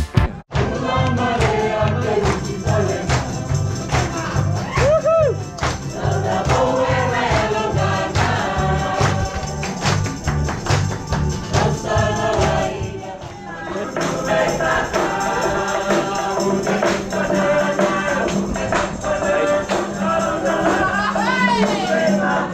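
Music with a steady beat and singing. About halfway through, the beat drops away and a group of ship's crew sing together to guitar accompaniment.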